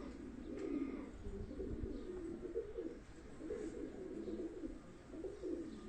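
Domestic pigeons cooing, several overlapping low warbling coos.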